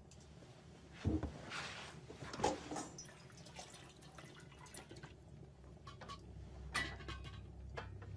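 Faint scattered clicks, taps and small knocks over a quiet hiss, with a few louder knocks among them.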